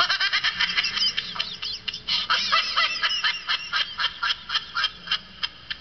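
Laughing sound effect: high-pitched laughter in a rapid string of short, staccato ha-ha pulses.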